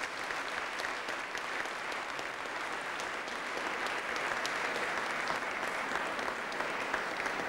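Audience applauding steadily after a speech, a dense patter of many hands clapping.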